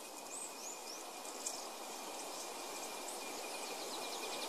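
Natural outdoor ambience: a steady hiss with a thin, high, steady whine, and a few short high chirps in the first second.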